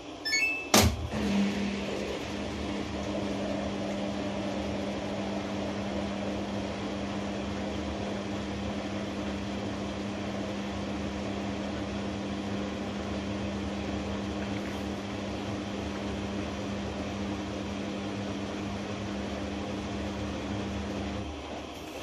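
Samsung front-loading washing machine starting its drum calibration cycle: a short electronic chime and a click, then a steady machine hum that stops near the end.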